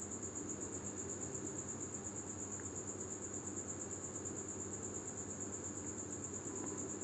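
A steady, high-pitched insect-like trill, like a cricket, continuing without a break over a faint low hum.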